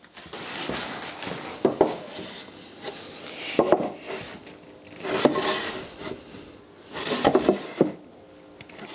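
One-handed trigger bar clamps being squeezed tight onto 2x4 timber, clicking in about four short bursts. Light knocks and rubbing of wood come from the pieces being shifted into line.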